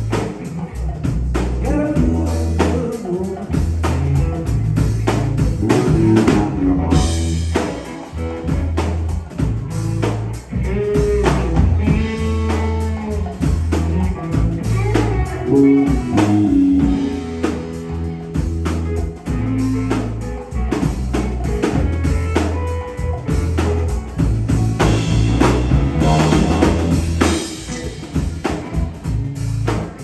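Live three-piece rock band playing: electric guitar, electric bass and a drum kit, with a steady bass line and frequent cymbal and drum hits under moving guitar lines.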